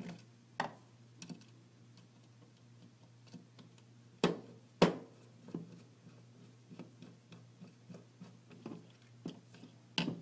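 Light clicks and knocks of laser-cut plywood panels and small screws and washers being handled on a wooden tabletop, with two louder knocks a little after four seconds in. A faint steady low hum runs underneath.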